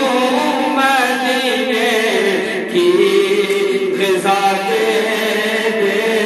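A man singing an Urdu naat unaccompanied into a handheld microphone, holding long notes that waver and turn in ornaments.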